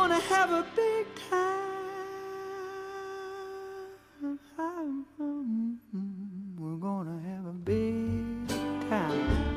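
Acoustic string-band music between songs. A song ends on long held notes, then a soft wavering melody plays, and at about seven and a half seconds fiddle and guitar start the next tune together.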